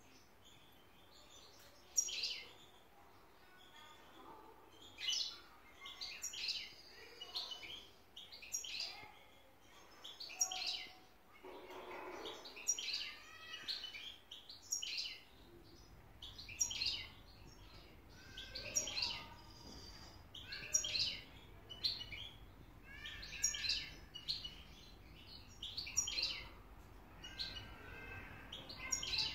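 European goldfinch singing in its cage: short bursts of high, rapid twittering and chirps, one phrase every second or two.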